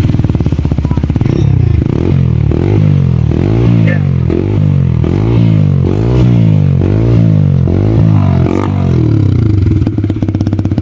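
TVS Apache 160 4V's single-cylinder engine running through an aftermarket exhaust, idling, then revved in a quick series of repeated throttle blips, roughly one every 0.7 seconds, before settling back to idle near the end.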